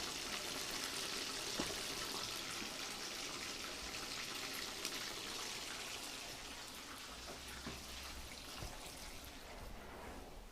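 Spiced chicken pieces deep-frying in hot oil: a steady sizzle with scattered pops and crackles that slowly grows quieter.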